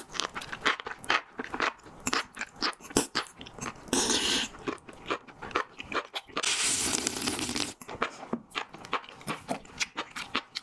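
Close-miked chewing of enoki mushrooms in spicy buldak sauce: a dense run of wet crunching and squelching clicks. Two longer breathy rushes of air come about four seconds in and again around six to seven seconds, heavy breathing against the burn of the sauce.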